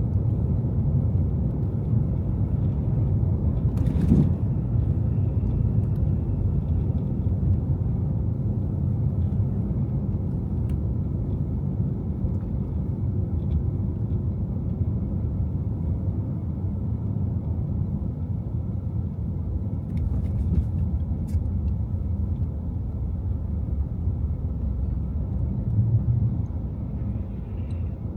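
A car driving on snowy city streets: steady low rumble of road, tyre and engine noise, with a short sharp knock about four seconds in.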